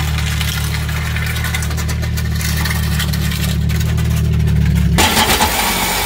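Jeep ZJ Grand Cherokee engine running with a steady low rumble, its exhaust fallen off under the truck, over the hiss of rain. About five seconds in it cuts off abruptly and gives way to a louder hiss and clatter.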